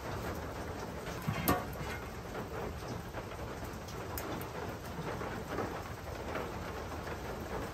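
Steady rain from a rainstorm, falling as an even hiss, with a single sharp knock about a second and a half in.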